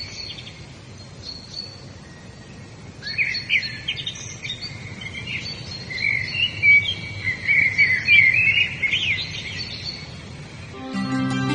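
Songbirds singing in quick, chirping, warbling phrases over a soft outdoor background, the song growing busier about three seconds in. Near the end, soft instrumental music with sustained tones fades in.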